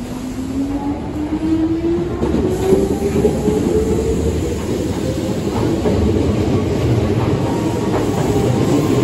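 Hankyu electric local train pulling away from the platform: its motor whine rises steadily in pitch as it accelerates over the first few seconds. The sound then gives way to a growing rumble with wheels clicking over rail joints as the cars pass.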